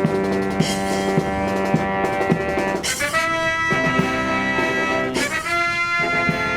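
Brass marching band playing held chords over a steady drum beat of about one stroke every half second, with a change of chord about three seconds in.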